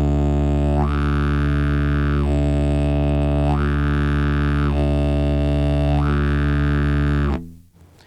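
Didgeridoo drone held on one steady low note while the player alternates between open and closed cheeks. The tone turns brighter and then duller three times over, and the drone stays balanced throughout. It cuts off near the end.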